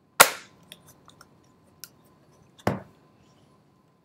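Plastic desk stand snapping onto the back of a Polycom VVX 101 desk phone: one sharp click just after the start, then a duller knock about two and a half seconds in as the phone is set down on the desk, with a few small plastic ticks between.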